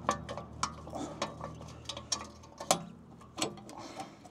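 Irregular metal clicks and taps of a screwdriver working against the spring hardware of a Land Rover LR4/LR3's rear parking brake shoes, prying a part up and out; two sharper clicks come a little past the middle.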